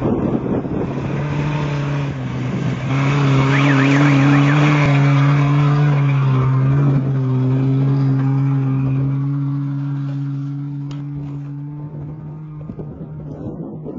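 Off-road race truck engine passing at speed with a steady note, swelling about three seconds in and slowly fading away over the last few seconds.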